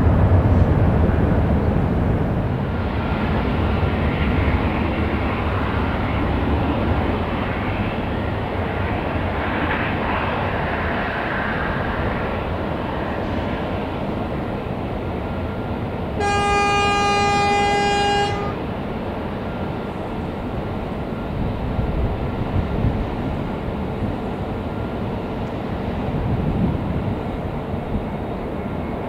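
Jet engine rumble of a departing airliner, fading as it climbs away, over steady airport background noise. About two-thirds of the way through, a horn sounds one steady note for about two seconds.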